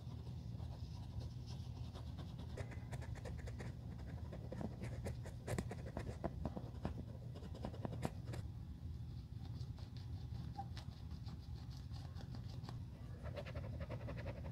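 Cotton swab scrubbing along the stitching and around the lace eyelets of a white leather sneaker upper: a soft, scratchy rubbing that comes and goes, heaviest in the middle and again near the end.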